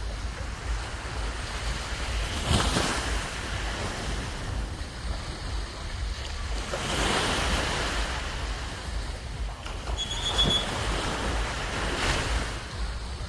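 Sea waves breaking and washing up the beach, swelling about every four to five seconds, with wind rumbling on the microphone. A brief high-pitched tone sounds about ten seconds in.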